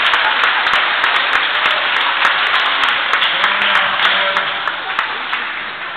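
Audience of schoolchildren clapping, with a few voices among it; the applause slowly thins and dies down toward the end.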